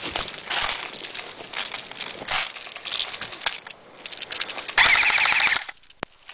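Footsteps and rustling through brush, then about five seconds in a loud, rapid burst of under a second from an airsoft rifle firing on full auto. The burst cuts off sharply and is followed by a single click.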